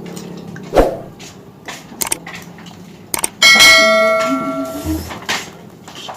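A single clear, bell-like ring, as of a struck glass, dish or bell, about three and a half seconds in, dying away over about a second and a half. Small clicks and eating sounds come and go around it.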